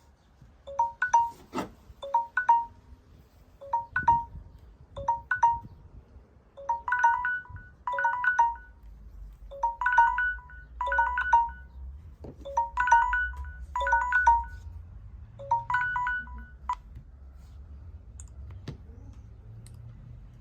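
Samsung Galaxy smartphone alert tone playing: a figure of short chime-like notes repeating about once a second, which grows fuller partway through and stops about 17 seconds in. A few sharp clicks and a low rumble lie underneath.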